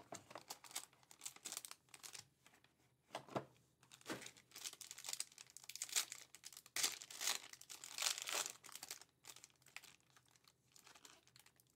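A foil trading-card pack wrapper being handled and torn open by hand: irregular crinkling and crackling, busiest and loudest in the middle stretch.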